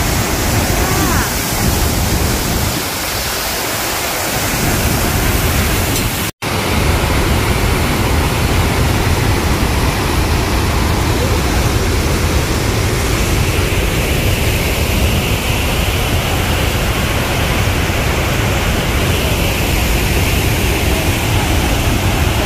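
Rhine Falls roaring at close range: a loud, steady rush of whitewater pouring over the rocks, broken by a momentary gap about six seconds in.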